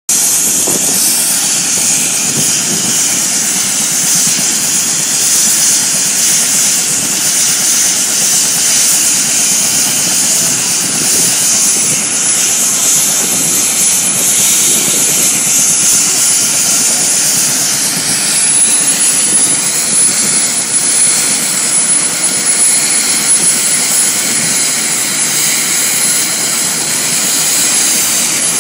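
Turbine helicopters running close by: a steady high turbine whine over the rotor noise, with the pitch of the whine shifting about two-thirds of the way through.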